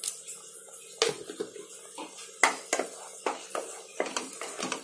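A spoon stirring thick masala paste in a pan, knocking and scraping against the pan in a string of irregular clicks, the loudest about two and a half seconds in. It is the salt just added being mixed into the paste.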